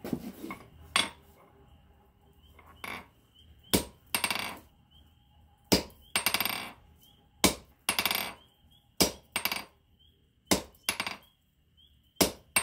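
A 1 kg engineer's hand hammer striking red-hot steel flat bar on an anvil. It makes about a dozen blows at an uneven pace, each a sharp metallic strike, several followed by a brief ringing rattle.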